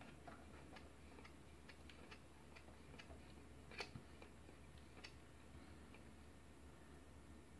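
Faint, irregular clicking from the voltage knob of a switching-mode DC bench power supply as it is turned up by hand, a few clicks a second with a slightly louder one about four seconds in, over a steady low hum.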